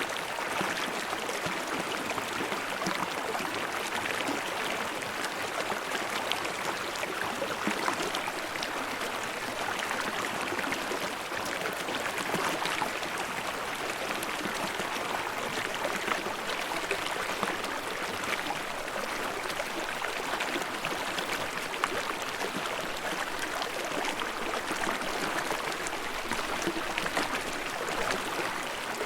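Stream water babbling steadily: a constant rush of running water with many small splashes.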